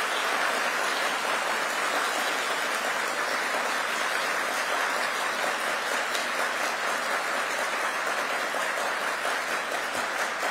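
Large audience applauding: dense, steady clapping that carries on without letup.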